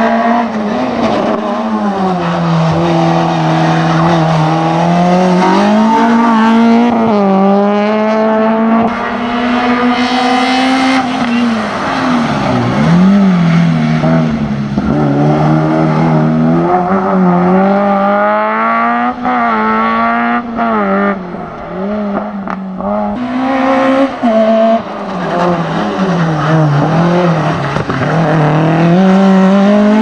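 Race cars' engines revving hard through a cone slalom. The engine note climbs and falls again and again as the drivers accelerate, lift and brake between the chicanes, with a few brief drops at gear changes.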